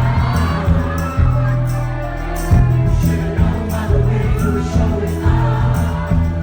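Live rock band playing through a club PA, with a pounding bass line, a steady drum beat and a male voice singing; heard through a phone-type audience recording.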